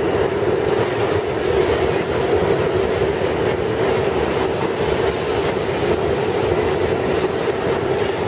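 New York City Subway R68 train running out of the station into the tunnel: a loud, steady rumble of wheels on rail with a constant drone underneath.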